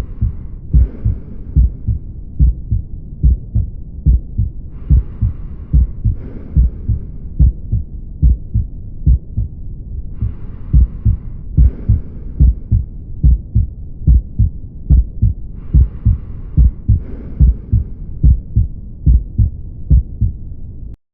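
Heart sounds heard through a stethoscope: a regular run of low thuds. Soft breath sounds rise and fall over them four times, each an in-breath and out-breath, about every five and a half seconds.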